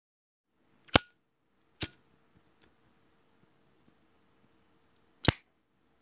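Three sharp metallic clicks from a Zippo lighter: a bright ringing clink about a second in, a shorter click just under a second later, and another sharp click near the end.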